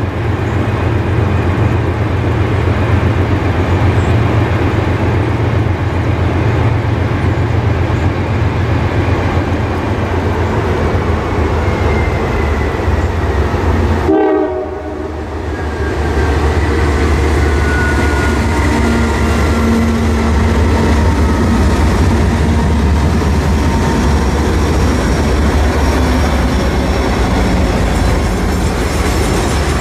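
Four diesel locomotives (GE C44-9W, ES44AC and C40-8W, with a trailing EMD SD40-2) working in notch 8, full throttle, with a steady deep drone as they haul a long, heavy oil train up a steep 2% grade. The lead units pass about halfway through, with a sudden brief dip in loudness, then the freight cars roll by with wheel clatter.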